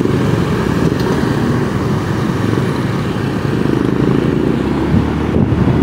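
Motorcycle engine running with road and wind noise while riding through city traffic and turning a corner, a steady rumble.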